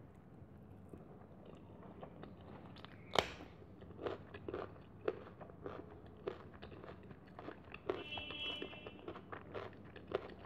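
Close-up chewing of a mouthful of rice with pumpkin-stem chorchori, with wet mouth clicks and smacks; one sharp click about three seconds in is the loudest.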